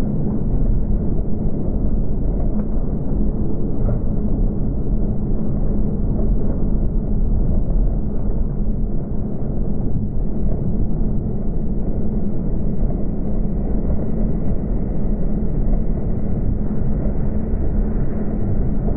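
Steady, muffled wind rush and road noise on a bicycle's handlebar-mounted camera at race speed, loudest in the low end, with a faint steady hum.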